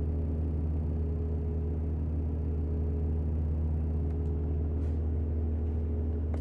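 Steady low hum, with a few faint, irregular clicks from about four seconds in: the clicking a Puppy Cube toy makes while on charge when it won't power on.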